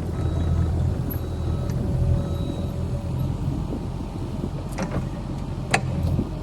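An engine running steadily at a low, even pitch, with two sharp knocks about a second apart near the end.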